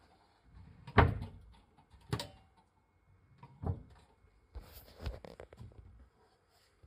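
Wooden cupboard door and pull-out drawers being handled, giving a series of knocks and bumps. The loudest comes about a second in, and a cluster of smaller knocks follows around five seconds.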